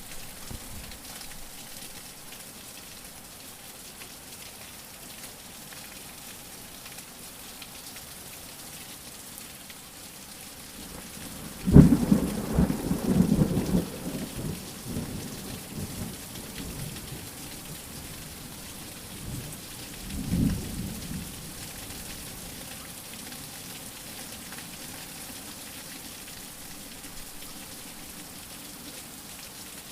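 Steady rain with two rolls of thunder: a loud one that breaks suddenly about twelve seconds in and rumbles for about three seconds, and a shorter, fainter one about twenty seconds in.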